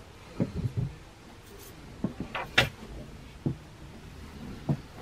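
Scattered light knocks and thumps in a small wooden boat cabin, about a dozen in all, the sharpest a little over two and a half seconds in. They fit handling and movement as someone makes their way through the cabin.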